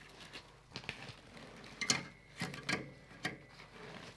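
Scattered light clicks and rustling as a car seat's passenger occupancy sensor, a bladder with its wiring, is fed through the seat's metal spring base and catches on it. There are five or six sharp clicks, the loudest about two seconds in.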